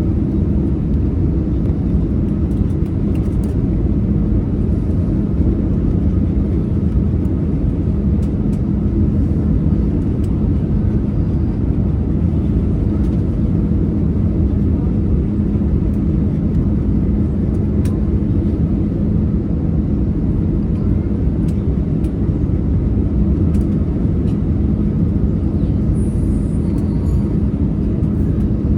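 Steady low engine rumble with a constant hum that neither rises nor falls.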